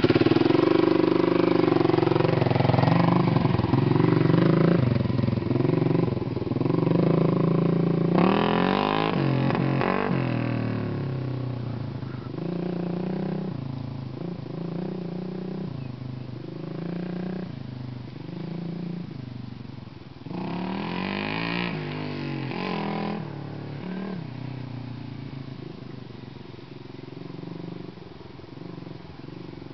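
Kawasaki KLR250's single-cylinder four-stroke engine revving as the dirt bike pulls away and rides off. Its pitch climbs and drops back again and again with the gear changes. Loud at first and fading with distance, with two louder swells of throttle, about a third and about two-thirds of the way through.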